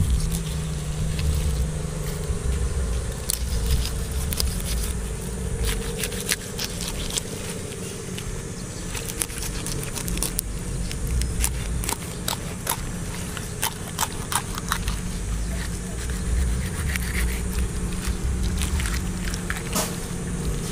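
A knife cutting through raw fish flesh and along the bones, clicking and scraping on a wooden chopping block in an irregular scatter of short sharp ticks, over a steady low rumble.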